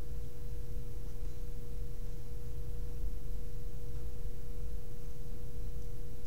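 A steady, unchanging pure tone with a low hum beneath it: constant background noise in the recording, with nothing else sounding.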